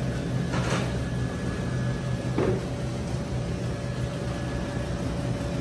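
Steady low rumble of a car cabin, with a faint steady hum over it and a couple of brief faint sounds.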